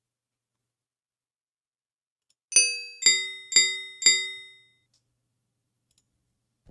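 Audacity's generated cowbell rhythm track playing one bar: four cowbell strikes about half a second apart, each ringing briefly, the first higher in pitch than the other three.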